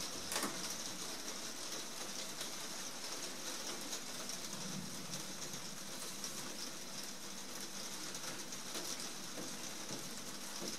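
Heavy rain falling steadily on a glazed roof: a dense, even hiss with scattered sharper drop taps.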